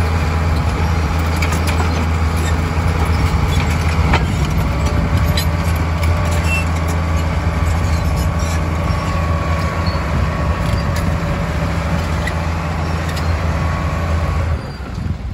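Crawler bulldozer's diesel engine running steadily under load as the dozer pushes through dirt and brush, with scattered sharp clicks and snaps over the engine. The engine sound dips briefly near the end.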